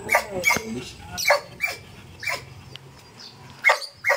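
A dog barking in a string of short, sharp, high barks, about seven in all, with a pause of about a second before the last two.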